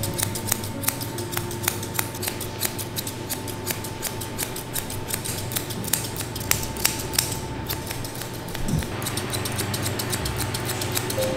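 Curved grooming scissors snipping through a miniature schnauzer's facial hair: a quick run of crisp clicks, several a second, that thins out about nine seconds in.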